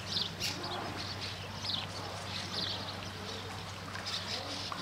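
Birds chirping in short, repeated high calls over a steady low hum.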